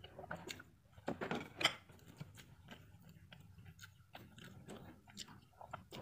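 A person chewing mouthfuls of rice and fried barramundi, with light clicks of chopsticks against a bowl and plate and a louder burst of eating noise about a second in.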